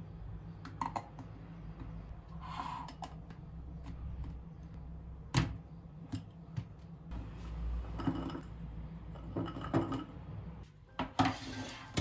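Lids pressed onto small food containers and the containers handled and set down on a wooden countertop: scattered light clicks and knocks, the sharpest one about halfway through.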